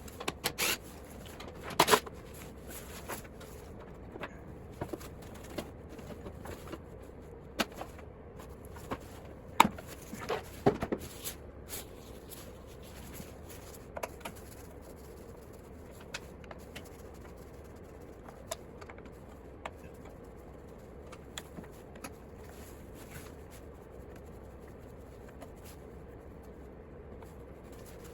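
Small hand tools and small-engine parts being handled during disassembly: scattered clicks, knocks and scrapes, busiest in the first ten seconds, then only occasional faint ticks over a steady faint hum.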